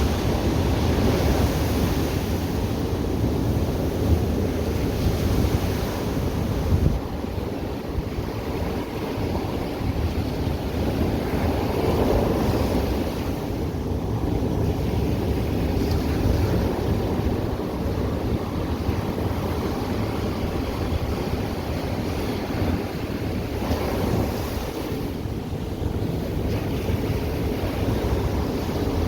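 Ocean surf breaking and washing up on a beach, a continuous rush that swells and eases as waves come in, with wind buffeting the microphone.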